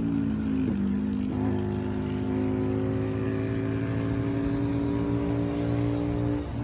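Naza Blade (Hyosung) V-twin sport motorcycle engine running in a flyby, its note holding fairly steady. The pitch steps down about a second in and then eases slowly lower.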